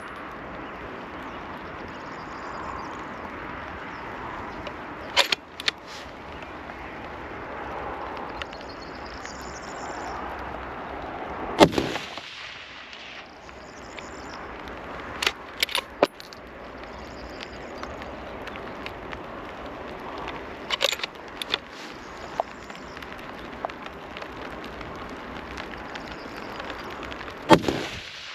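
Two rifle shots from a .308 bolt-action rifle, about sixteen seconds apart, each a sharp crack with a ringing tail. Several smaller sharp clicks fall between them over a steady background hiss.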